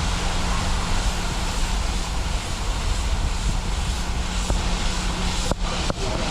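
Steady rushing wind noise on the microphone during a chairlift ride, with a few faint clicks near the end.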